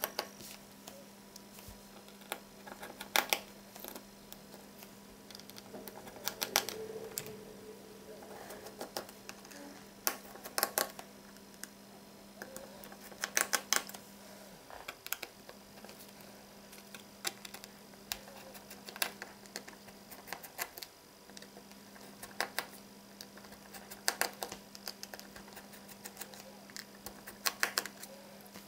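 Scattered light clicks and taps of plastic and small metal parts as the Huawei Y550 smartphone's back frame is handled and its tiny screws are taken out, coming in short clusters every few seconds. A low steady hum runs underneath.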